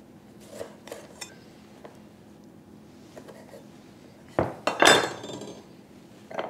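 Chef's knife cutting through a lime and knocking on a wooden cutting board, a few soft knocks in the first second or so. About four and a half seconds in comes a louder clatter with a clink, as a knife and glassware are set down on the board.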